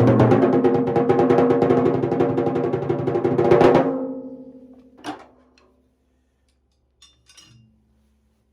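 Timbales with Evans G2 Clear heads played with timbale sticks in a fast, dense run of strokes. The run peaks loudest just before it stops about four seconds in, and the drums are left ringing. A single stroke follows about a second later, then a couple of light taps near the end.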